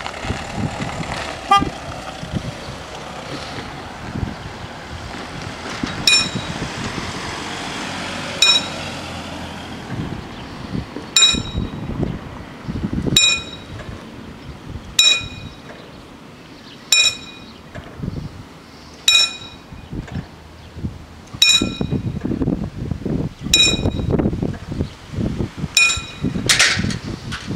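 Level-crossing warning bell ringing, starting about six seconds in with a bright ding repeated about every two seconds, over wind noise on the microphone.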